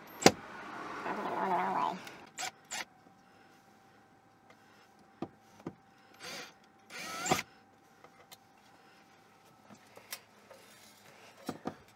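Cordless drill/driver whirring for about two seconds as it backs a screw out of the shower door's overhead track, followed by a few sharp clicks and another short burst of the driver a few seconds later.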